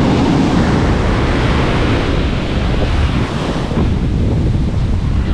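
Strong wind buffeting the microphone with a heavy low rumble, over the steady wash of breaking surf; the higher hiss eases somewhat past the middle.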